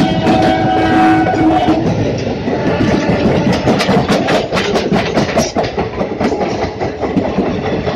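Diesel locomotive's horn sounding and cutting off under two seconds in, then the passenger train running past close by, its wheels clattering over the rail joints with many sharp clicks.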